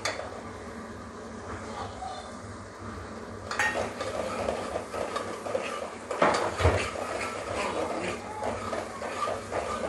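Spoon stirring and scraping onion and ginger-garlic paste frying in oil in a metal pot. There is a soft sizzle at first. The scraping and clinking pick up about three and a half seconds in, with a single knock against the pot a little past the middle.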